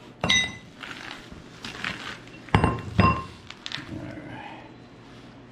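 Threaded metal gas pipe and fittings knocking and clinking together as they are handled: one sharp ringing clink just after the start and two more close together around two and a half to three seconds in, with lighter clatter between.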